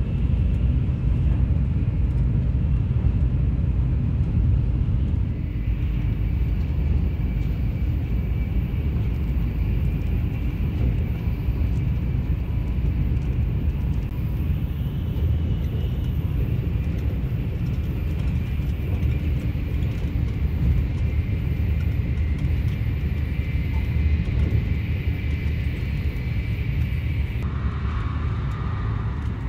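Shinkansen passenger cabin noise with the train running at speed: a steady low rumble with a faint high whine. The sound shifts in character a couple of seconds before the end.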